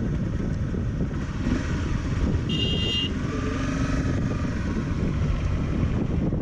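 A dual-sport motorcycle running under way, a steady rough rumble mixed with wind buffeting on the microphone. A brief high-pitched tone sounds about two and a half seconds in.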